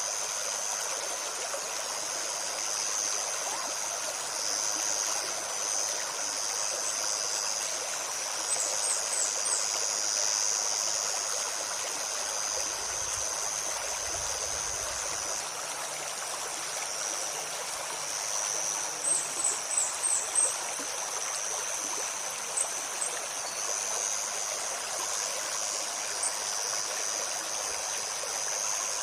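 Shallow stream babbling and rushing steadily over stones, under a steady high drone of insects. A small bird gives short high chirps in quick runs of four or five, twice, and a few single chirps after.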